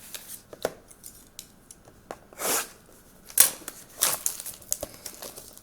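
Packaging of a sealed hockey trading card box being opened by hand: a series of sharp clicks and short rustling tears, the loudest click about three and a half seconds in.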